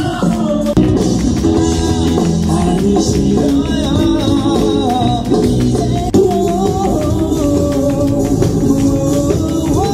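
Live band performing: a male vocalist singing into a microphone over electric guitar and drums, heard through the festival PA.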